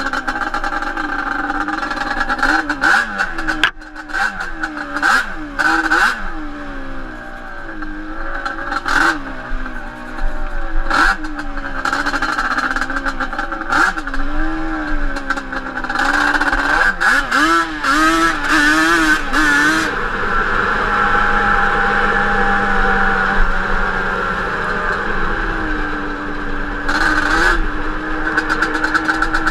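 Yamaha Banshee 350 twin-cylinder two-stroke ATV engine on Toomey T5 expansion-chamber pipes, revving up and down again and again while being ridden, with sharp knocks and rattles throughout. About two-thirds of the way in, the revving gives way to steadier running.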